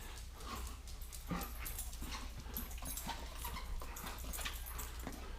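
A dog making faint, intermittent sounds, with scattered light clicks and scuffs, while it waits eagerly for its ball to be thrown again.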